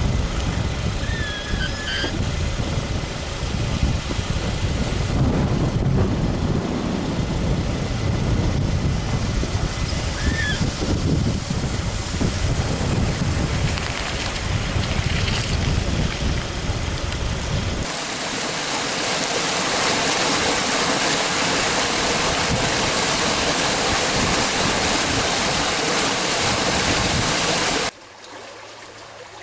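Toyota Camry driving slowly through shallow floodwater and debris on a washed-out road, with a heavy low rumble and a few short bird chirps. About eighteen seconds in, this gives way to a steady hiss of rushing water. Near the end it drops to the quieter flow of a swollen creek.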